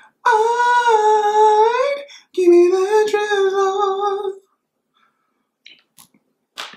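A man singing two long, high, wavering notes in an imitation of a song, the first bending upward at its end. A short click follows near the end.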